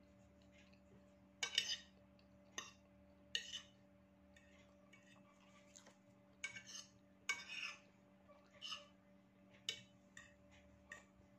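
A metal fork scraping and clinking against a ceramic plate as instant noodles are twirled and picked up. The sounds come in short, irregular bursts over a faint steady hum.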